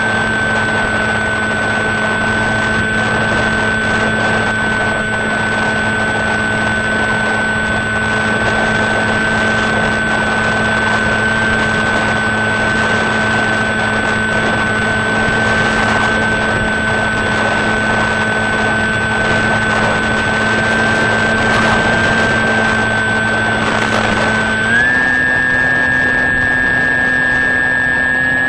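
Electric motor and propeller of an HK Sky Eye FPV model plane, heard from on board: a steady high whine over a rushing noise. The pitch steps up slightly near the end.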